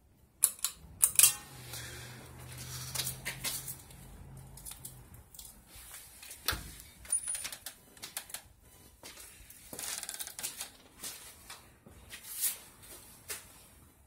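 Harbor Breeze 42-inch ceiling fan running, with a steady low motor hum through the first few seconds. Irregular sharp clicks and knocks run throughout, loudest about a second in.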